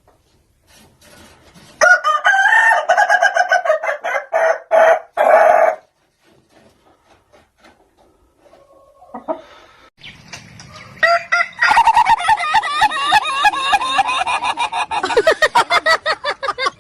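Ayam ketawa (laughing rooster) crowing twice: a crow of about four seconds, then a longer one of about seven seconds, each broken into a rapid string of short, choppy notes like laughter.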